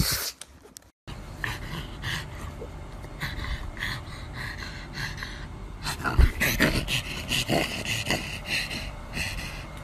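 A pug panting hard through its open mouth, quick breaths in an even rhythm that grows louder and faster after about six seconds, with one sharp thump about six seconds in.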